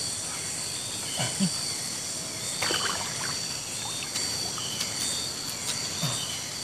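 Light splashing and trickling of river water as a freshly caught snakehead fish is handled and washed, with a few soft knocks, over a steady high insect drone.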